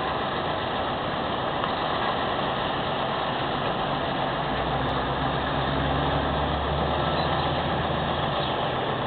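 Twin Pratt & Whitney PT6A-67D turboprops of a Beechcraft 1900D at takeoff power, heard from a distance as a steady drone, with a low propeller hum growing stronger about halfway through as the aircraft climbs out.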